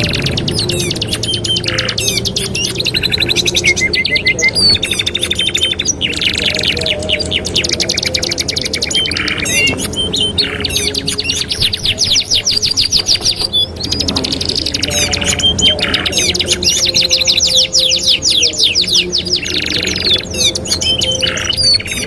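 Two domestic canaries singing together without pause: long fast trills and rolls, with short whistled notes between them.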